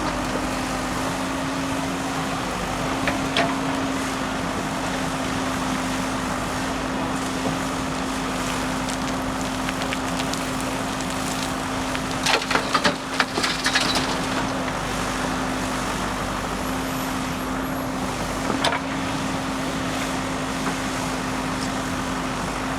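JCB backhoe loader's diesel engine running steadily with a constant low hum. A brief cluster of sharp knocks comes about twelve to fourteen seconds in.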